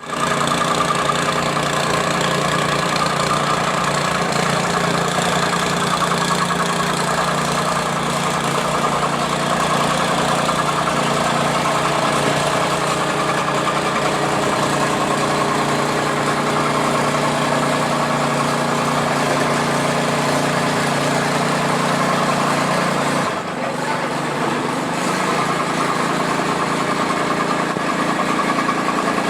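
Jumping-jack tamping rammer's small engine running steadily and loud while compacting fill soil. Its note drops briefly about three-quarters of the way through, then carries on.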